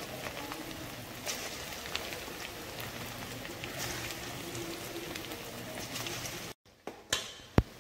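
Batter-coated cauliflower pieces sizzling and crackling as they deep-fry in hot oil, while more pieces are dropped in. About six and a half seconds in the sizzle cuts out suddenly, and two sharp clicks follow near the end.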